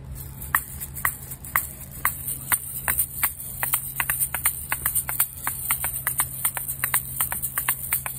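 Asalato (patica) being played: the seed-filled shells rattle continuously and clack sharply against each other, at first about twice a second, then in a busier, syncopated rhythm from about three seconds in.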